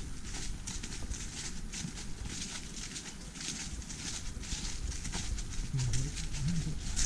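Footsteps crunching through dry fallen leaves on a forest trail, at a steady walking pace.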